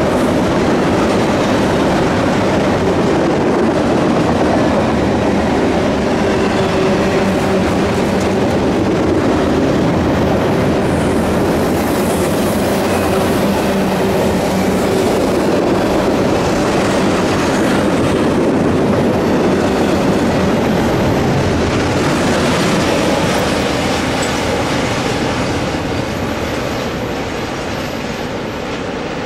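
CSX double-stack intermodal freight train's container well cars rolling by on the rails: a steady rumble of steel wheels on track with clickety-clack. The sound eases off near the end as the last car passes.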